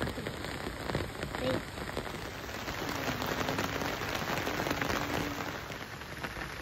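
Steady rain falling on an umbrella and the leaves around it, with many single drops striking close by.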